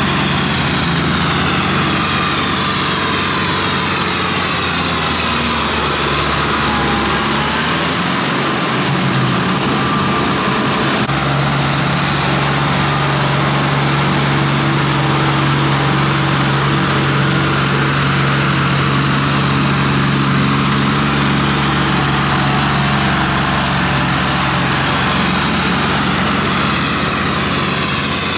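Small Kubota tractor's diesel engine running steadily under load as it drags a cage-wheeled harrow through a flooded rice paddy. The engine note shifts about eleven seconds in.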